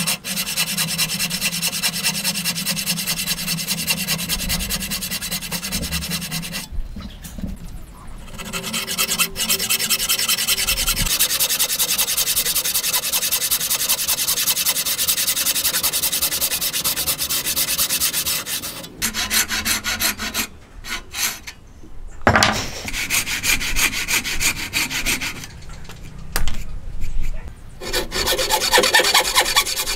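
Thin-bladed wooden frame saw cutting by hand through a hardwood beam: a steady rasp of rapid back-and-forth strokes, broken by a few short pauses.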